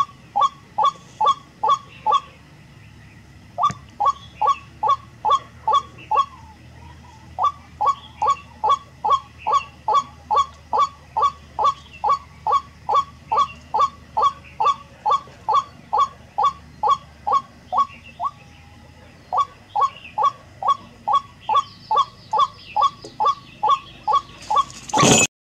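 White-breasted waterhen calling: a long run of loud, evenly repeated downward-sweeping calls, about two to three a second, with a few short pauses. Near the end a sudden loud rush: the spring net trap snapping shut over the bird.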